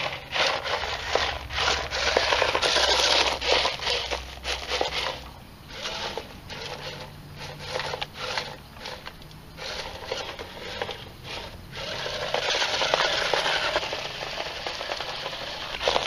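A small 3D-printed robot's blue plastic airless tires crunching and scraping over gravel, dry leaves and grass as it drives. The noise is an uneven crackle full of small clicks, heaviest twice, early and again after about 12 seconds.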